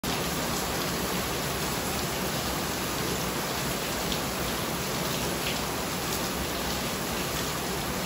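Steady rain falling, an even hiss.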